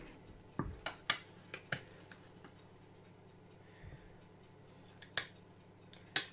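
A slotted turner clicking and tapping against a glass baking dish and a plate as a portion of baked potato is lifted out and set down: a few light clicks in the first two seconds, then two more near the end.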